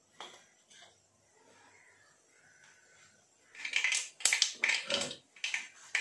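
A wooden spatula scraping and clinking against a small steel bowl. After a quiet start with a couple of faint knocks, a run of sharp, irregular clinks and scrapes begins about three and a half seconds in.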